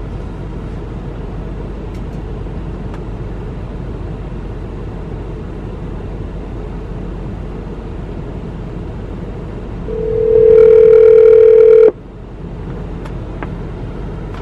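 A phone on speaker rings out on an outgoing call: after about ten seconds of low steady hum, one ringback tone sounds for about two seconds and cuts off sharply. The call is ringing at the other end and has not yet been answered.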